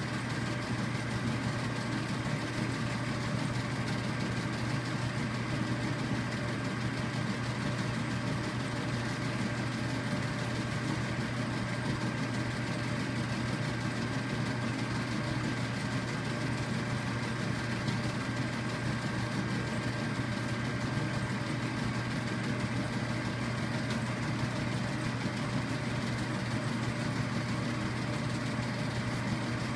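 Polarvision movie player running: a steady motor-and-fan hum with a faint high whine above it that fades out near the end.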